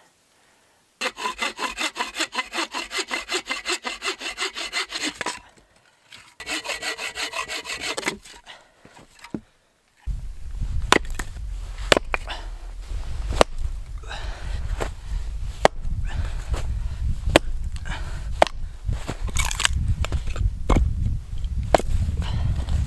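A hand saw cutting firewood in quick, even strokes, about four a second, in two bouts. From about ten seconds in, a hatchet splitting wood on a stump: sharp knocks roughly once a second over a low rumble.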